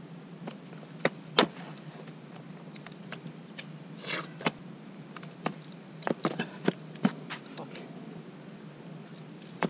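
Stunt scooters rolling over asphalt, with scattered sharp clacks and knocks of the scooter decks and wheels hitting the ground.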